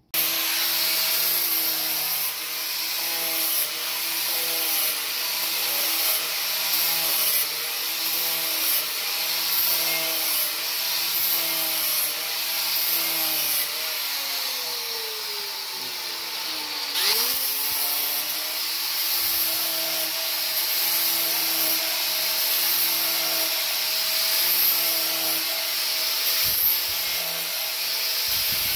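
Handheld electric angle grinder running, grinding on the end of a steel axle tube, with a steady whine over a harsh hiss. About halfway through its pitch sinks over a few seconds as it slows, then jumps back up as it spins up again.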